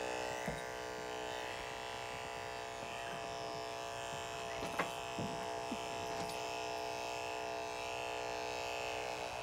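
Electric dog-grooming clippers running with a steady buzz, with a few faint clicks about half a second in and again near the middle.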